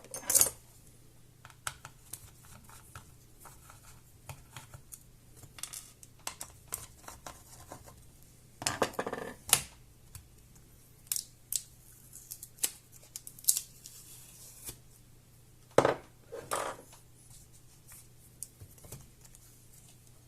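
Hands working on laptop parts: scattered small clicks and taps of plastic and metal, with a few louder scraping, rustling bursts near the start, about nine seconds in, and about sixteen seconds in.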